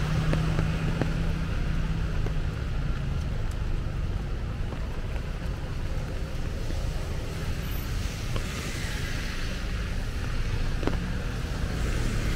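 Street traffic on a rain-wet road: a steady engine rumble with the hiss of tyres on wet tarmac, which swells as cars pass about two-thirds of the way in and again near the end.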